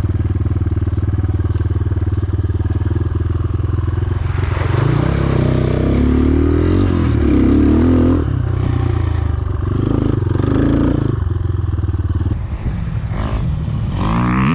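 250 cc enduro motorcycle engine running steadily, then revving up and down several times in the middle before settling again near the end.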